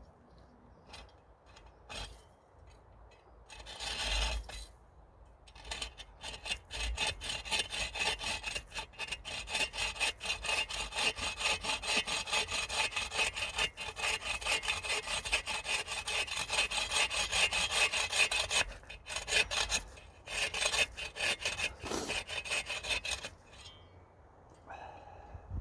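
Hand saw cutting through wood in fast, steady back-and-forth strokes, with a short break about two-thirds of the way in before a last run of strokes that stops near the end.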